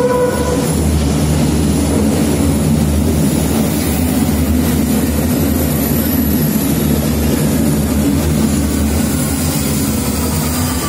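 Berlin U-Bahn H-series train entering an underground station and running past along the platform: a loud, steady rumble of wheels on rail. Near the end a faint whine falls in pitch as the train slows.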